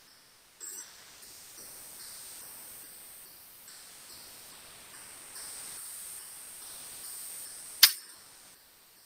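Helium gene gun (biolistic particle delivery system) under pressure: a faint steady hiss, then a single sharp, loud pop about eight seconds in as the rupture disc bursts and fires the DNA-coated gold beads onto the cell plate.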